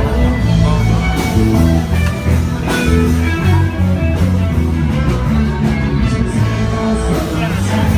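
Live rock or blues band music with electric guitar and a heavy bass line, heard loud and unbroken.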